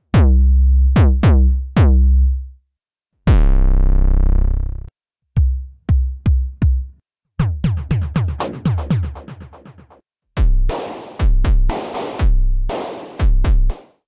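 Tone2 Saurus 3 software synthesizer playing its drum presets: deep synthesized bass-drum hits, each dropping quickly in pitch, with one longer booming hit about three seconds in. Then quicker drum-machine beat patterns, with noisy hits alternating with deep kicks in the last few seconds.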